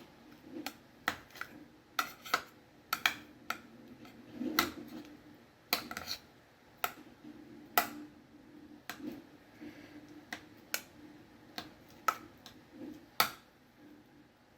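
Sharp, irregular clicks of a utensil striking a hard surface as a banana is chopped into pieces, about one or two a second.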